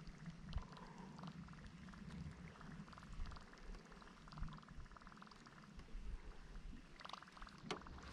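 Faint rapid ticking whirr of a fishing reel being cranked in short stretches, about two and a half seconds in and again near the end, as a topwater lure is worked back across the water. A low wind rumble runs underneath.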